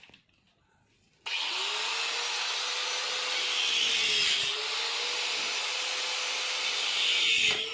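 A power cutting tool starts about a second in and runs steadily, its motor tone sagging slightly twice as it bites, with a loud hiss of cutting through the rusted wheel's metal.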